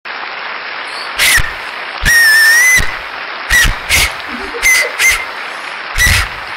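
A string of short, high whistles, about eight, each starting sharply. One is held longer, with a wavering pitch, about two seconds in. They sound over a steady hiss.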